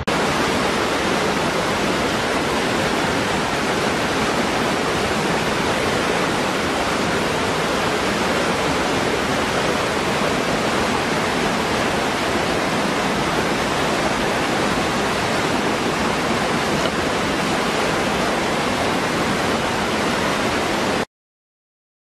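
Small waterfall pouring into a rocky pool: a steady, loud rush of falling and churning water that cuts off abruptly near the end.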